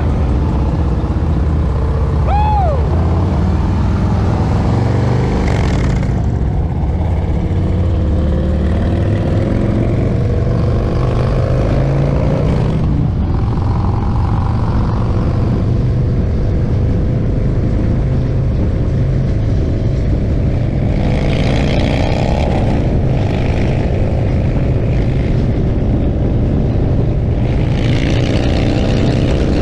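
Motorcycle engine running steadily under way, with two runs of rising revs, the first about two-thirds of the way in and the second near the end.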